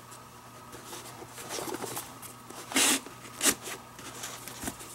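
Leather lace being pulled through the lacing holes of a catcher's mitt: leather rustling and rubbing, then a loud squeaky rub of the lace drawn tight a little under three seconds in, followed by a sharp click about half a second later.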